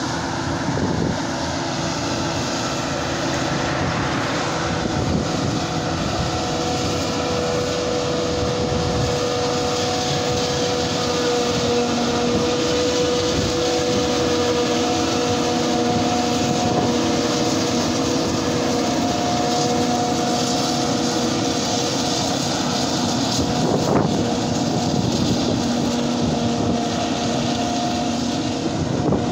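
Claas self-propelled forage harvester running as it cuts standing maize: a steady engine drone with a held whine over it.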